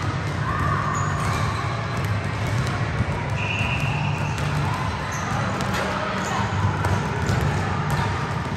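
Basketballs bouncing on a gym floor during team practice, with a steady busy din of many bounces, short high squeaks here and there, and players' voices in the background.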